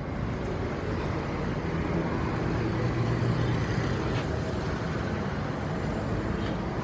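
Steady road traffic noise: a constant rumble of passing engines and tyres.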